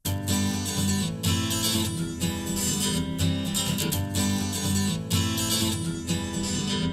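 Acoustic-guitar-led music, strummed, starting abruptly out of silence as the instrumental intro to a song, played back through in-ear monitors for a sound comparison.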